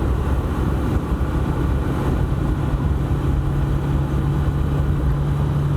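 Haojue Chopper Road 150's single-cylinder engine running at a steady cruising speed, with wind and road noise. A steady low drone sets in about a second and a half in.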